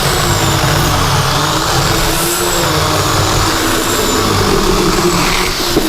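Portland 9-amp, 14-inch electric chainsaw running under load while cutting firewood, its motor pitch sagging and recovering as the chain bites into the wood.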